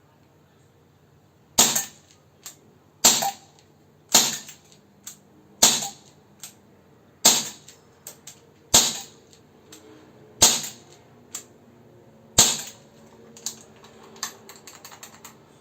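Gamo PR-776 CO2 air pistol firing eight sharp shots, one every one to two seconds, with a fainter click between each shot. A run of light, quick clicks follows near the end.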